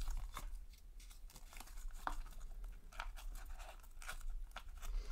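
Paper sticker packet being torn open by hand: a run of short, uneven rips and crinkles as the strip is peeled off the wrapper.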